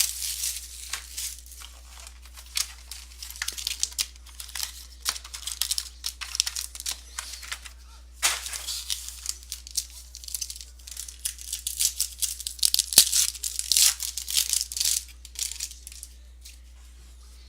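Trading-card pack wrappers being torn open and crumpled by hand, an irregular crinkling and rustling that goes on throughout.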